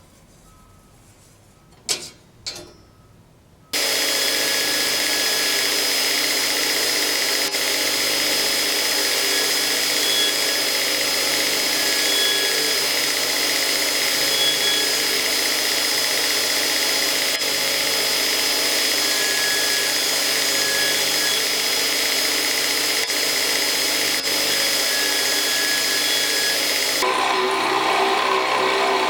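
An electric grinder starts after two clicks and runs steadily with a high, constant whine. Near the end its sound changes to a coarser, lower tone.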